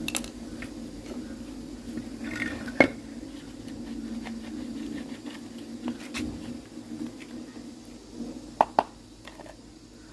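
Scattered clicks and knocks of hard parts and tools being handled over a steady low hum. The loudest knock comes about three seconds in, and two sharp clicks come close together near the end.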